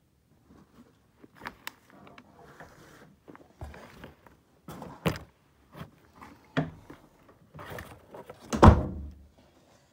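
Handling noise: irregular clicks, rustles and knocks, with a heavy thump near the end, the loudest of them.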